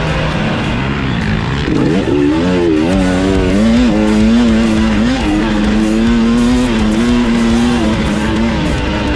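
Dirt bike engine under throttle, its pitch climbing and wavering about two seconds in, then holding steady at high revs before easing off near the end. Music plays underneath.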